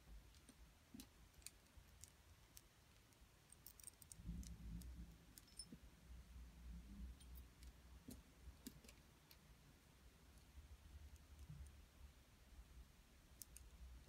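Faint, scattered clicks of metal rings tapping against one another as they are picked up and set down on a cloth-covered surface. A soft low rumble joins in about four seconds in.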